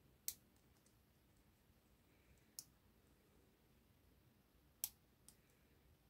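Dimple pick working the pins of an IsraLock dimple padlock: three sharp, faint metallic clicks about two seconds apart, with a few softer ticks between them.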